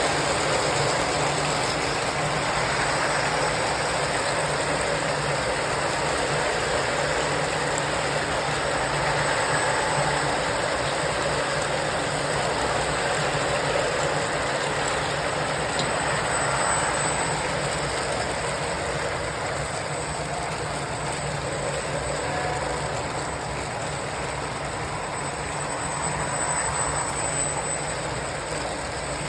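3D-printed model train running along its track, a steady motor hum with the rolling noise of the cars, easing slightly in the second half.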